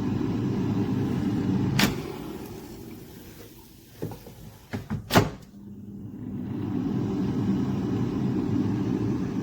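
Air fryer fan running with a steady hum. A sharp click about two seconds in is followed by the hum dying away, a few clicks and a knock about five seconds in, and then the hum building back up.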